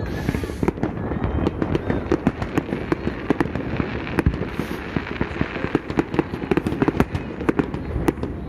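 Aerial fireworks going off in quick succession, a dense run of sharp bangs and crackles.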